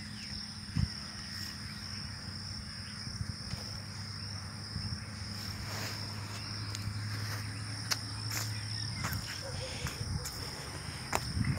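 A steady, high-pitched chorus of insects droning, with a few scattered clicks and a soft knock about a second in.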